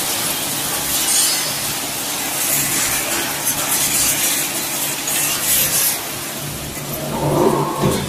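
Industrial peanut frying machine running: a steady motor hum under a hissing, rattling noise that swells a few times, from fried product moving through the stainless-steel drum and discharge chute.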